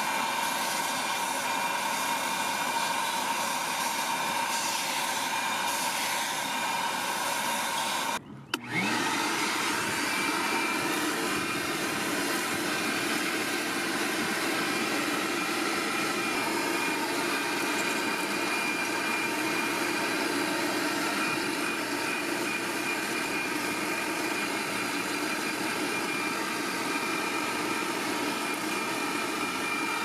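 Vacmaster VQ607SFD stainless steel wet/dry vacuum (3 peak HP motor) running steadily while its hose nozzle is worked over a car's floor carpet. The sound cuts out for a moment about eight seconds in, then resumes with a slightly different pitch.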